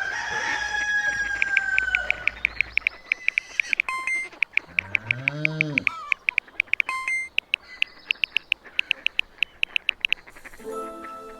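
A run of cartoon sound effects with farm-bird calls: a long falling glide at the start, a pitched call that rises and falls about halfway through, and short ringing tones, all over fast, even clicking. Steady musical notes come in near the end.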